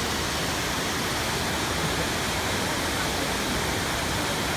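Waterfall pouring steadily, a constant full rushing of falling water.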